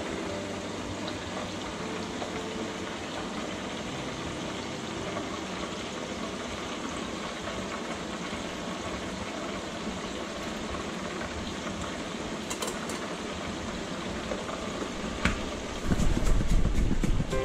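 Steady sizzling hiss of squid frying in oil inside a closed electric deep fryer. Near the end a loud low rattling starts as a plastic quart container holding squid pieces and corn coating mix is shaken hard.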